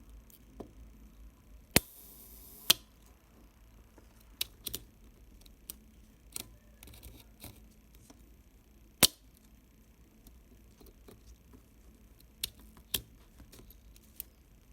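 Nikon FM2 film camera's mechanical shutter being fired and wound several times. It makes sharp separate clicks, with softer clicks of the advance and handling between them. Near the start, a slow-speed release gives two loud clicks about a second apart, with a buzz of the slow-speed timing mechanism running between them.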